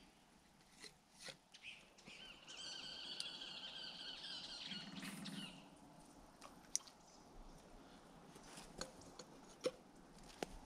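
Faint whir of a spinning fishing reel being cranked for about three seconds, followed by a few light clicks as the rod and reel are handled.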